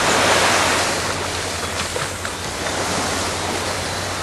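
Surf breaking and washing up a sandy beach, a steady rush of water that is loudest at the start.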